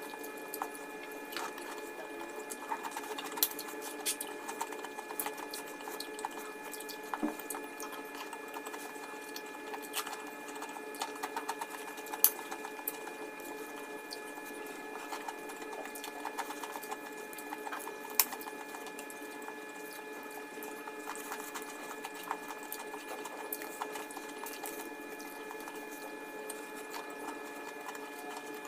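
Eating by hand: kerupuk crackers crunching and fried rice being chewed, giving irregular sharp crunches and mouth clicks, a few of them louder, over a steady background hum.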